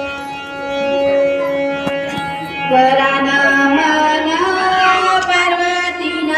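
Indian devotional music: steady held notes, with a singing voice coming in about three seconds in and gliding between pitches.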